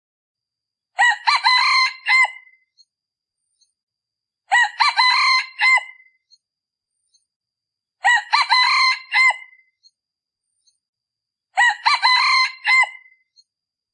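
A male decoy junglefowl crowing four times, evenly spaced about three and a half seconds apart, each crow short and clipped. This is the call used to lure wild junglefowl cocks.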